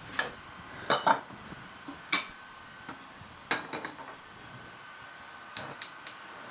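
A stainless steel saucepan knocking and clanking as it is set onto a gas stove's grate, then three quick clicks near the end as the burner knob is turned and the gas lights.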